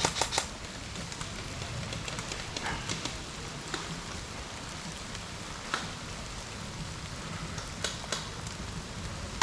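Steady rain falling and pattering on surfaces, with scattered sharp clicks: a quick cluster of three right at the start, then single clicks spread through the rest.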